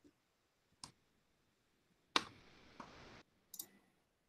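A few faint, sharp clicks a second or so apart, the loudest about two seconds in, with near silence between them.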